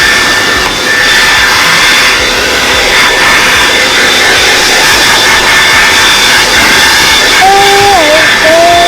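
TRESemme hand-held hair dryer running steadily: a loud rush of blown air with a high motor whine.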